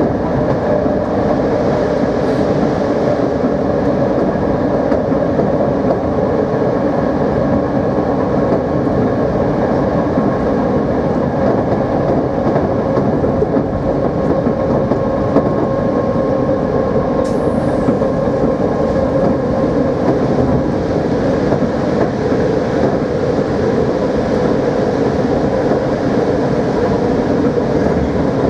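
NS Plan V (Mat'64) electric multiple unit running at a steady speed: a constant traction-motor and gear hum over dense rolling rail noise.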